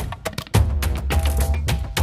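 Music with a busy percussive beat: sharp clicky hits over a heavy bass line. The bass drops out briefly near the start and comes back about half a second in.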